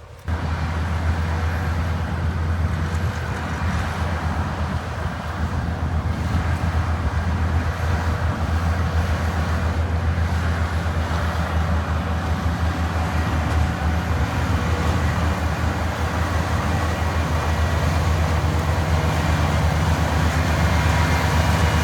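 Oxbo six-row sweet corn pickers at work with the tractors pulling their carts: a loud, steady mechanical drone with a strong deep hum and a constant whine above it.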